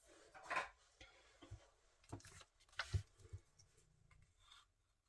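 A few faint, scattered knocks and clicks of small objects being handled and set down on a desk, with light rubbing, mostly in the first three and a half seconds.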